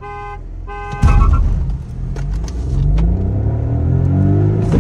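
Two short car-horn toots closing a start countdown. About a second in comes a hard launch: the stage-1 tuned 1.0-litre turbocharged three-cylinder petrol engine of a Volkswagen Virtus, heard from inside the cabin, revving hard with its pitch climbing as the car accelerates.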